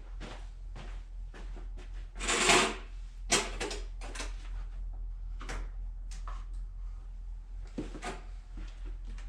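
Scattered knocks and clicks of objects being handled, with a louder scraping rustle about two seconds in and a sharp click just after, over a low steady hum.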